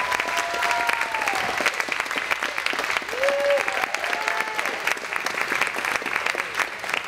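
Audience applauding, with a few voices cheering over the clapping.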